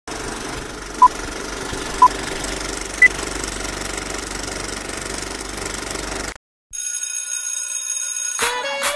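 Film-countdown leader effect: the steady clatter of a running film projector with three short beeps a second apart, the third one higher. It cuts off about six seconds in, and after a brief gap music begins with sustained synth tones.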